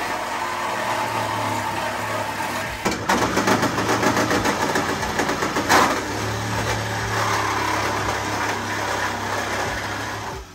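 A small motor or engine running steadily with a low hum, with a stretch of fast rattling from about three to six seconds in that peaks sharply once, then cuts off abruptly.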